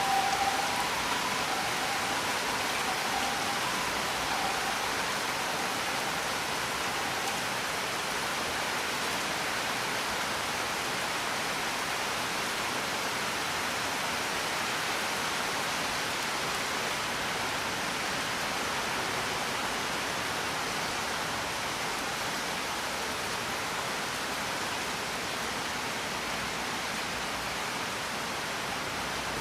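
Steady rain, an even hiss. Two faint held tones fade away in the first few seconds.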